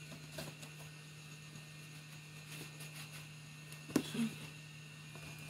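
Quiet workbench room tone with a steady low hum and light handling noise, then a sharp click about four seconds in.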